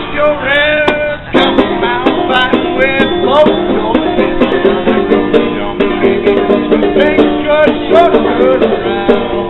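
A busker's banjo being played, with a man singing along. The music dips briefly about a second in and comes back louder.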